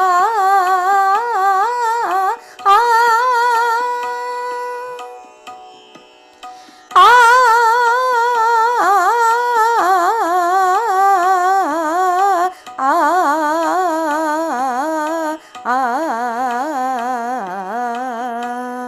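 A voice singing a fast alankar pattern in Raag Bhairav on the vowel 'aa' (aakar), the pitch moving quickly up and down in ornamented runs. It comes in several phrases, with a short pause about six seconds in.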